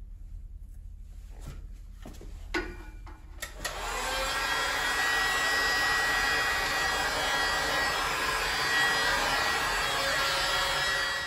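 Handheld Makita heat gun switched on about three and a half seconds in, its fan blowing steadily with a thin whine, then switched off sharply near the end. It is warming suede pieces freshly brushed with contact adhesive, to activate the glue. A few light clicks and knocks of handling come before it starts.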